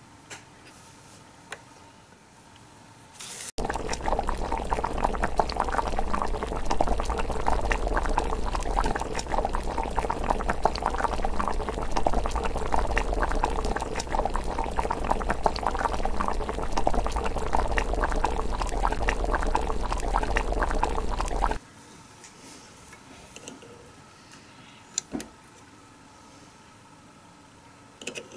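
Water boiling hard in a tiny clear miniature pot, a dense, close-up bubbling. It starts suddenly about three seconds in and cuts off abruptly a few seconds before the end.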